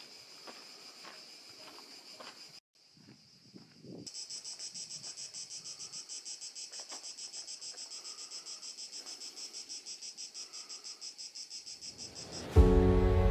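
High-pitched chorus of shrilling insects, pulsing about five times a second. It cuts out briefly about two and a half seconds in and comes back louder. Music starts abruptly just before the end and is the loudest sound.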